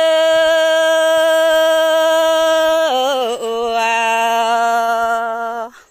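A woman singing a Red Dao folk song (hát lượn) unaccompanied, holding one long steady note, then gliding down about three seconds in to a lower held note that cuts off sharply near the end.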